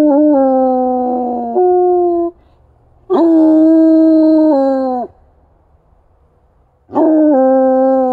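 Bluetick coonhound baying: three long howls, each about two seconds, with a quiet gap between them, set off by deer scent. The first is already under way and jumps up in pitch briefly before it ends, the second comes in the middle, and the third starts near the end; each slides slightly down in pitch as it goes.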